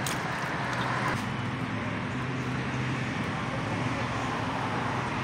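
Steady outdoor street background: a low engine or traffic hum with faint voices in the distance.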